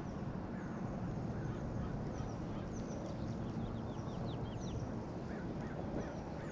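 Birds calling: repeated short, high chirps that slide downward, thickest a few seconds in, over a steady low rumble of wind and water.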